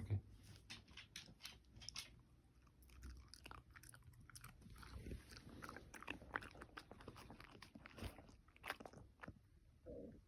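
Shiba Inu chewing, faint irregular crunching and clicking of food in its mouth, with a short low sound near the end.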